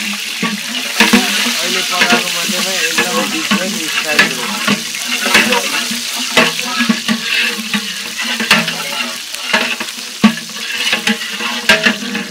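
A long metal ladle stirring in a large aluminium pot, with a steady sizzle of hot oil frying green chillies and spice seeds. The ladle knocks sharply against the pot every second or two.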